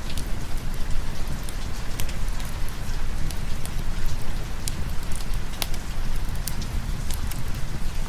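Steady heavy rain, with many scattered sharp drop ticks over a continuous low rumble.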